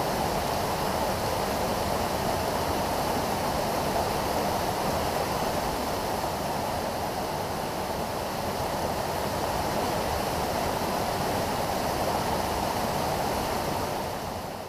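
Mountain stream running over rocks: a steady rush of water that fades out near the end.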